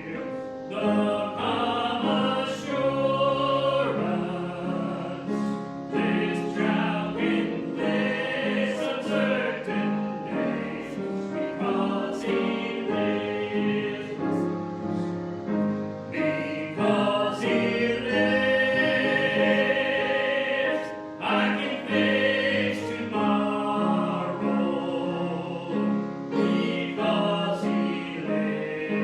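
Choir singing a gospel worship song over instrumental accompaniment with a steady, even beat.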